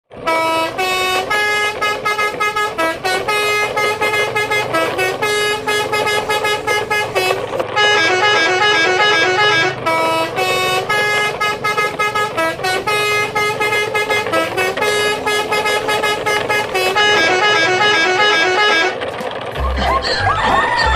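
Telolet horn, a multi-note musical air horn of the kind fitted to Indonesian buses and trucks, playing a melody of short and held notes. It stops about nineteen seconds in, when a different sound with low thumps takes over.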